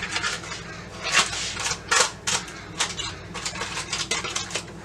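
Irregular clicks, taps and clatters of kitchen containers and utensils while powdered sugar is got out and shaken over a freshly fried funnel cake, the loudest knocks about one and two seconds in.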